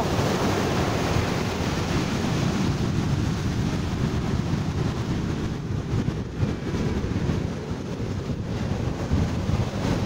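Heavy storm surf breaking and washing up a sand beach, a continuous rushing wash, with wind buffeting the microphone.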